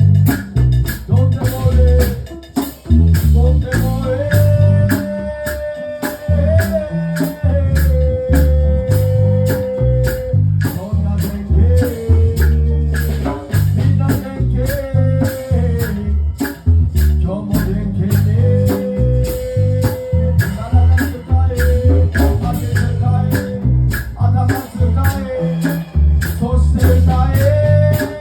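A live band plays: drum kit keeping a steady beat, bass guitar, strummed guitar and a melody line of long held notes.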